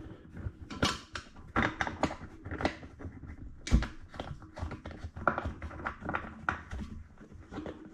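Irregular clicks and knocks of a new plastic toilet seat and its mounting bolts being handled and lined up, with one louder knock nearly four seconds in.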